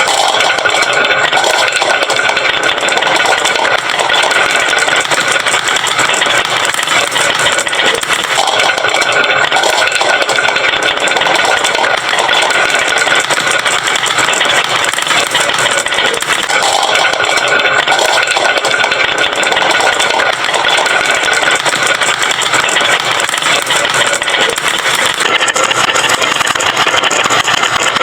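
Many glass marbles rolling and clattering down a wooden marble-run slope, a steady, dense rattle.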